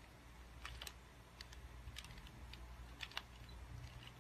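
A 2x2 Rubik's Cube being turned by hand: faint, irregular plastic clicks as its layers are twisted through a sequence of moves.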